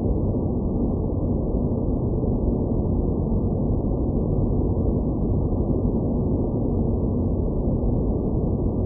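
Space-planet ambience of steady, deep, muffled noise with nothing above the low range, unchanging throughout with no distinct events.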